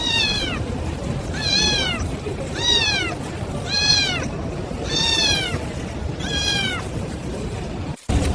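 Kitten meowing six times in a row. Each meow is a high-pitched call that rises briefly and then falls, about one every second and a half.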